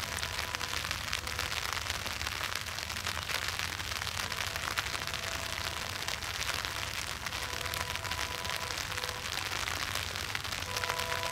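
Steady rain with raindrops hitting an umbrella held over the camera, a dense crackle of countless small ticks. A faint, distant held tone comes and goes a few times, clearest near the end.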